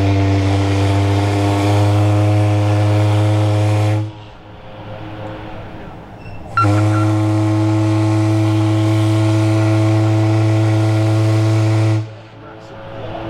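Steamship's steam whistle sounding two long blasts: a deep, steady chord with a hiss of steam through it. The first blast cuts off about four seconds in, and after a pause of about two and a half seconds the second sounds for about five seconds.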